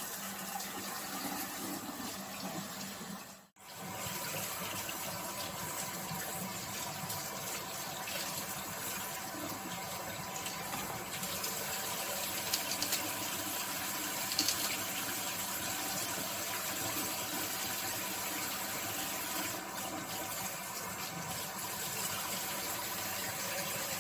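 Kitchen faucet running in a steady stream, splashing over celery stalks held under it for rinsing. It cuts out briefly about three and a half seconds in, and a few small clicks sound later on.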